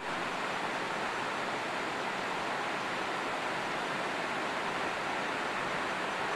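River water rushing over a shallow rocky ledge: a steady, even rushing hiss.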